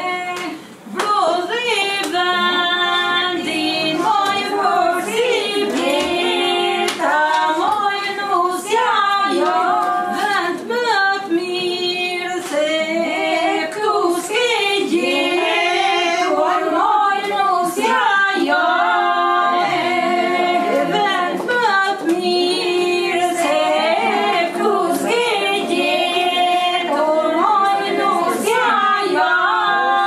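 A group of women singing together without instruments: a traditional Albanian wedding song.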